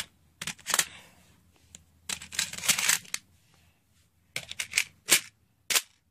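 Handling noise from small craft objects moved close to the microphone: a series of sharp clicks and taps, with a rustling stretch about two seconds in.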